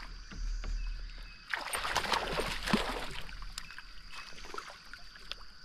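Water splashing beside a kayak as a hooked fish is landed: a noisy splash from about a second and a half in, lasting about a second and a half, over a steady faint rush of moving water.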